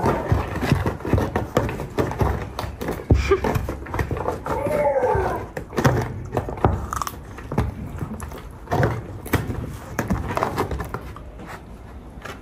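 A pet wild cat's drawn-out call, falling in pitch, about four to five seconds in. Around it run many short wet clicks and crunches of watermelon being chewed.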